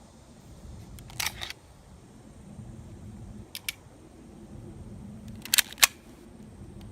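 Airsoft guns clicking: a short rattly cluster of clicks about a second in, a quick pair of clicks in the middle, and two loud sharp clicks near the end.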